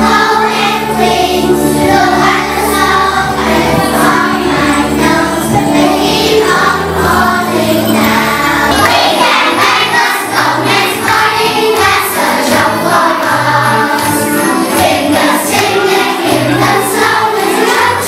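A children's choir singing a song together with instrumental accompaniment.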